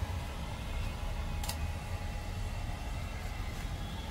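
Handheld hair dryer running steadily, blowing on a wet dog's coat, with one short click about a second and a half in.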